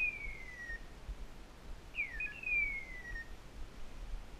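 A hunting dog's beeper collar sounding its tracking call: a quick falling chirp, a short note, then a longer falling screech, repeated identically about every two and a half seconds.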